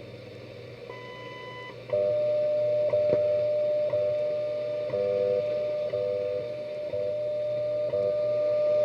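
WWV shortwave time signal heard through an RCA AR-88 receiver. About a second in comes the long beep that marks the new minute, followed by a steady audio tone broken by a short tick every second.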